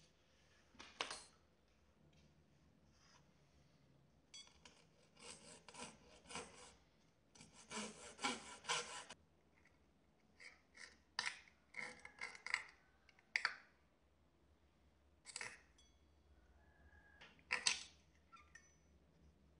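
Thin, fine-toothed saw blade cutting into the end of a wooden popsicle stick in short bursts of quick strokes, slitting it along pencil marks. Faint rasping, with pauses between bursts.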